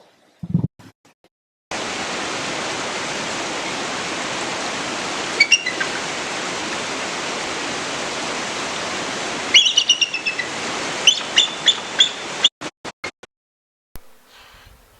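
Bird calls over a steady rushing hiss. There is one short chirp about five and a half seconds in, then a run of quick chirps from about ten seconds in. The hiss starts suddenly near the beginning and cuts off shortly before the end.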